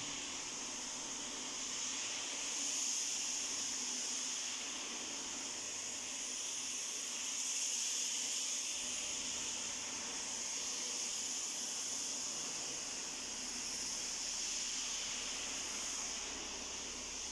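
Steady high hiss with no other sound: room tone of a large empty hall.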